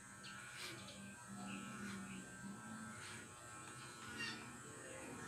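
Corded electric hair clippers buzzing as they cut a child's short hair. The buzz is steady and grows weaker about halfway through.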